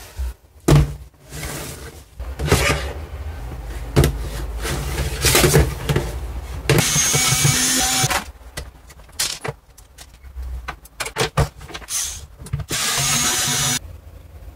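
Cordless electric screwdriver whirring in two short runs of about a second each, about halfway in and near the end, as it backs screws out of a CD-ROM drive's metal casing. Between them come clicks and knocks of metal drive parts being handled and set down.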